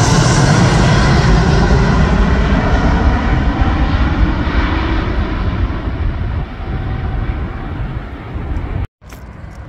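Jet airliner passing low overhead: a loud engine roar that fades as it moves away, losing its high hiss first. Near the end the sound drops out for an instant and comes back as a quieter, duller rumble.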